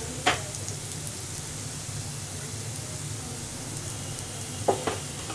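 Oil sizzling steadily in a nonstick pan around a tempering of dal, peanuts, cashews and curry leaves. A sharp click comes just after the start, and two short knocks near the end.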